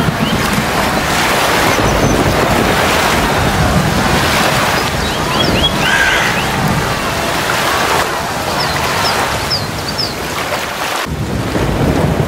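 Storm-at-sea sound effect: waves and wind in a loud, steady wash of noise, which changes abruptly about eleven seconds in.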